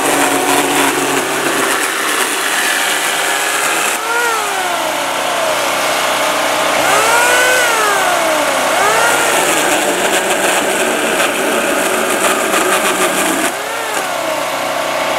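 Worx JawSaw corded electric chainsaw cutting branches: its motor whine rises and falls in pitch four times as it is run up and pulled through the wood. The steady hum of a generator runs underneath.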